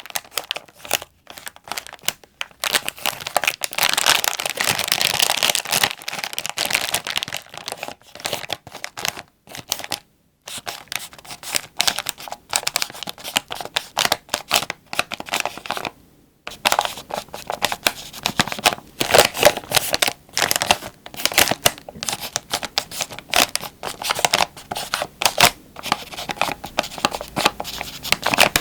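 Plastic wrapper of an Ottogi Jin Ramen Mild instant noodle pack crinkled and squeezed by hand: a long run of irregular rustling crackles, broken by short pauses about ten and sixteen seconds in.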